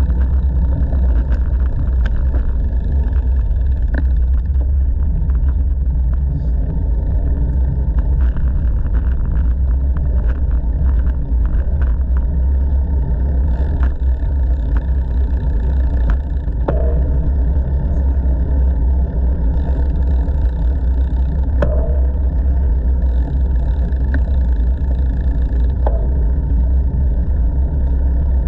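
Wind buffeting an action camera's microphone while cycling, with bicycle tyres rolling on an asphalt path: a loud, steady low rumble with scattered small clicks and knocks from the ride.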